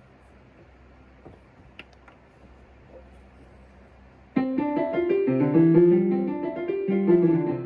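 Faint room tone with a few light clicks, then piano music starting suddenly a little over halfway in and playing a melody of held notes.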